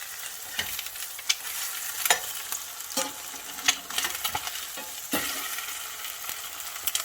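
Eggs frying in butter in a cast iron skillet, a steady high sizzle. Half a dozen short clicks and scrapes sound over it.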